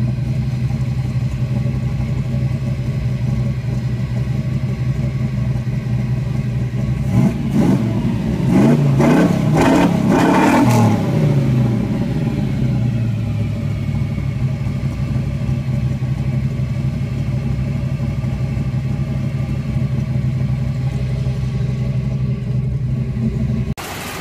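1990 Chevy C1500's 5.8-litre 355 V8 idling through headers and a Flowmaster 50 Series muffler with no catalytic converter. About seven seconds in it is blipped a few times, then revved up and let fall back, settling to a steady idle.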